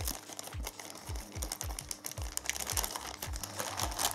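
Clear plastic bag crinkling as the multimeter's test leads are unwrapped, over electronic background music with a steady beat.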